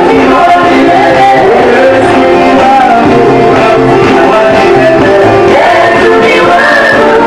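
Church worship music: voices singing a song with instrumental accompaniment, loud and continuous.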